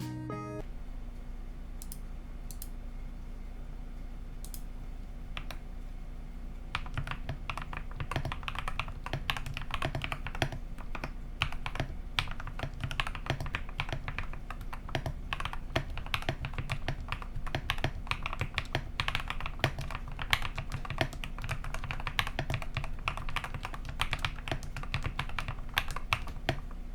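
Typing on a mechanical keyboard with lubed KTT Kang White linear switches and YUNZII Cutie Kitty keycaps, giving creamy, thocky keystrokes. A few scattered keystrokes come first, then fast continuous typing from about six seconds in.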